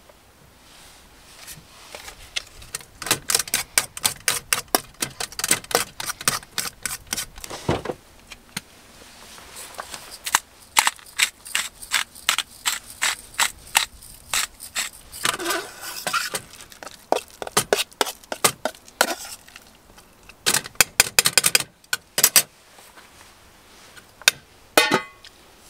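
A metal utensil knocking and scraping against the inside of a metal camp-stove saucepan as food is stirred in it. It comes in quick runs of several strokes a second, with pauses in between.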